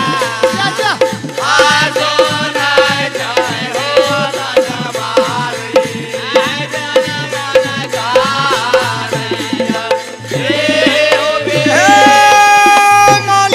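Folk-music instrumental passage: harmonium and electronic keyboard melody over a steady hand-drum beat, ending in a long held note near the end.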